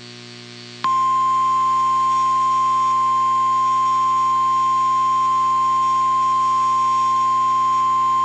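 NOAA Weather Radio's 1050 Hz warning alarm tone: one loud, steady beep-like tone that starts suddenly about a second in and holds without change, over a faint steady hum from the radio feed. The tone signals that a severe weather warning is about to be read.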